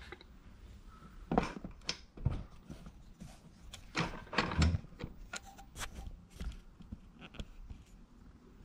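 Handling noise in a small room: a few soft knocks and thumps about one and a half, two and four seconds in, then a run of light ticks and rubs.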